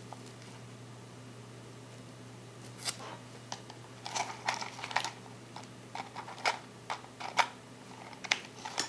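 Small sharp clicks and taps of watchmaking tools and tiny parts being handled at the bench, scattered irregularly from about three seconds in, over a steady low hum.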